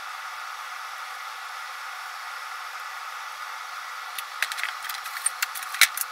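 Steady hiss, then from about four seconds in a quick run of small clicks and knocks, the loudest near the end: screws and a hand tool handled while fastening a 3D printer's metal frame.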